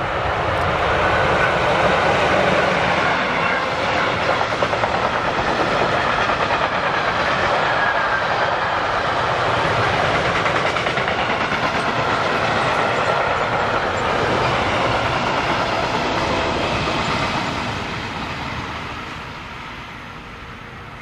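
Electric freight train of covered goods wagons passing by, the wheels running steadily on the rails. The sound fades away over the last few seconds as the end of the train goes past.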